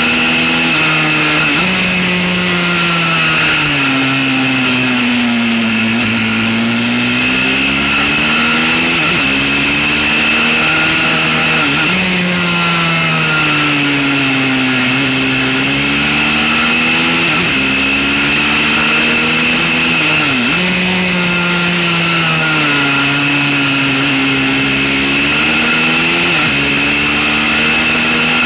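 Pit bike engine running hard, its pitch climbing and falling with the throttle and jumping abruptly several times at gear changes. Steady wind rush and a constant high whine run underneath.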